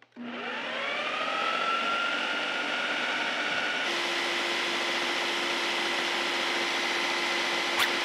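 Ninja blender's motor starting up with a rising whine, then running steadily as it churns whipped cream on toward butter. Its tone shifts abruptly about four seconds in, and there is a brief click near the end.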